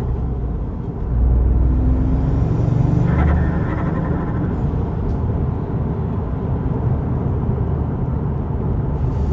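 Toyota GR Yaris's turbocharged 1.6-litre three-cylinder engine running with the revs rising and falling, and a chattering turbo flutter when the throttle closes about three seconds in.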